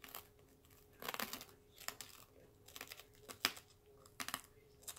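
Crunchy deep-fried corn dog batter being bitten off the wooden stick with the teeth and chewed close to the microphone: a series of separate crunches, the sharpest about three and a half seconds in.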